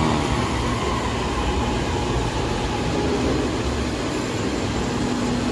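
Rapid KL LRT Ampang line train running into the station platform: a steady rumble with a faint whine.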